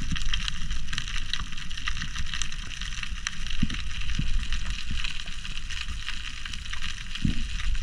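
Underwater ambience on a rocky seabed: a steady, fine crackle of tiny clicks over a low rumble of water moving, with a few slightly louder clicks.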